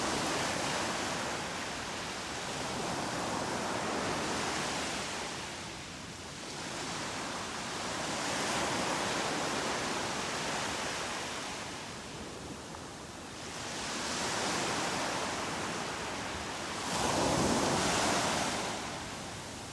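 Ocean surf washing onto the beach, its noise swelling and fading with each wave every few seconds; the loudest wave breaks near the end.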